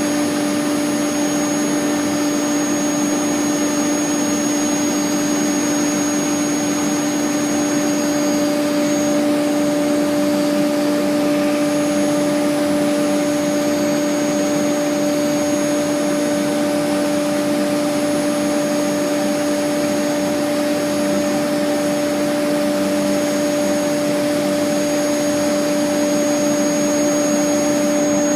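CNC router cutting wood with its dust collector running: a loud, steady machine whine with a constant rush of air, holding the same pitch and level throughout.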